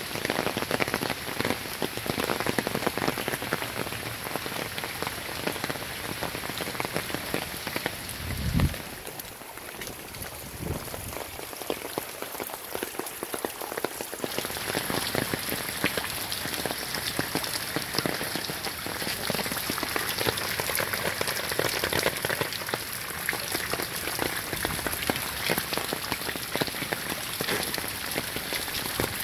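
Heavy hurricane rain falling steadily, a dense patter of drops on soaked ground and a wooden deck. About eight and a half seconds in there is one dull thump, and the rain sounds softer for several seconds after it.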